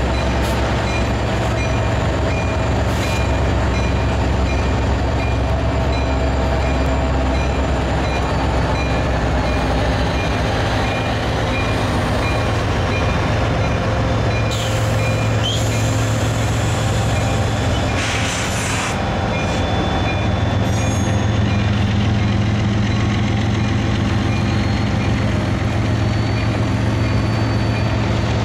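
Freight train passing: the diesel engines of road locomotives, among them a GE ES44AC in Lehigh Valley colours, run with a steady low drone as they roll by, over the rolling noise of covered hopper cars. A thin, steady high wheel squeal sits above it.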